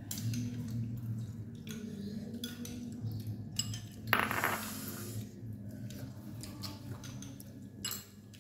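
Scattered clinks and knocks of spoons and dishes being handled during a meal, with a louder rasping noise lasting under a second about four seconds in, over a steady low hum.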